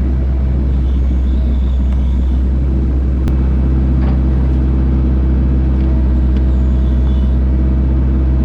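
A vehicle engine running steadily, with a strong deep rumble under it; its tone settles a few seconds in.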